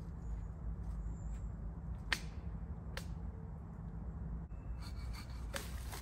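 Dead twigs and branches cracking sharply as the fallen wood is handled: a snap about two seconds in, another a second later, and a few more near the end, over a steady low rumble.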